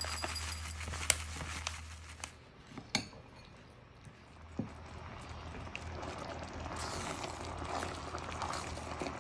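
A metal spoon clinking and scraping against a ceramic bowl, with a few sharp clinks in the first five seconds. Then a softer, wet stirring of thick sauce with a ladle.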